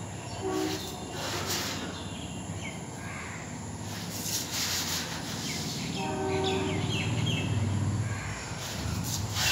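Outdoor background noise: a low engine rumble that grows louder in the second half, with a few short tooting tones.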